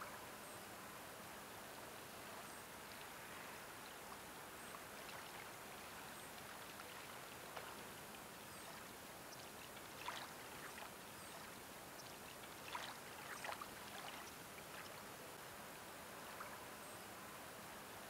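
Faint, gentle lapping of calm harbour water, with a few small splashes about ten seconds in and again around thirteen seconds.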